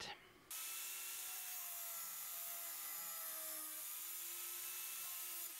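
Angle grinder with a cutoff wheel cutting through a thin steel bar: a steady high whine with a hissing grind. It starts suddenly about half a second in.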